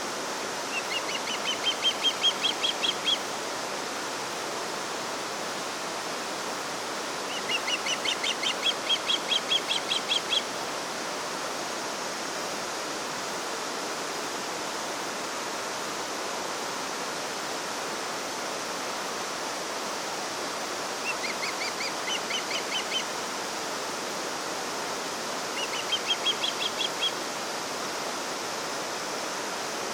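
Steady rush of running water, with a small songbird singing four times over it. Each song is a quick series of repeated notes that climbs slightly in pitch and lasts two to three seconds.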